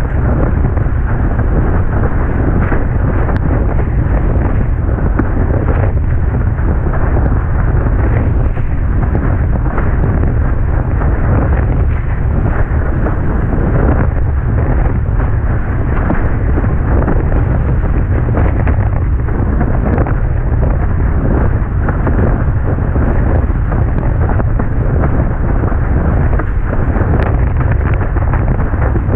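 Loud, steady wind rumble buffeting the microphone of an action camera on a windsurfer sailing at speed, mixed with the rush and splash of water past the board.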